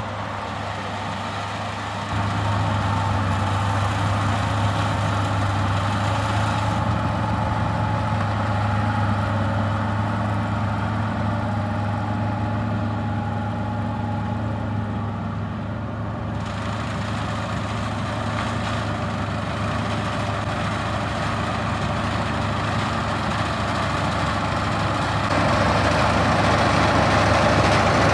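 Combine harvester's diesel engine running steadily with a low hum, getting louder near the end.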